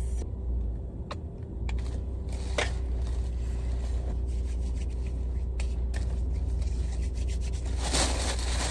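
Plastic takeout bag rustling and crinkling as food is unpacked, with a few small sharp clicks early on, over a steady low hum; the rustling is densest near the end.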